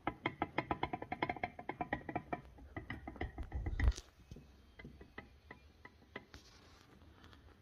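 Removed suspension strut (shock absorber) from a Škoda Superb being worked by hand, knocking rapidly for about four seconds and ending with a louder knock, then a few faint ticks. The knock is the sign of a faulty strut.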